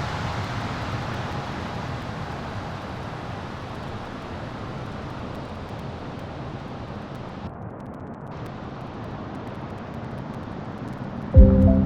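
Jet airliner's engines running at takeoff power, a broad rushing noise that slowly fades as the aircraft climbs away. Music cuts in suddenly near the end.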